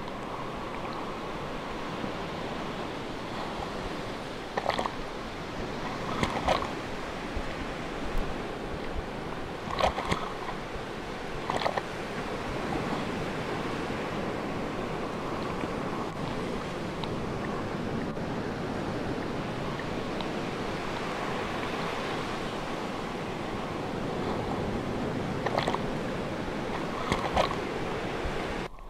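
Sea surf washing steadily, an even rushing sound, with a few short, sharper sounds scattered through it.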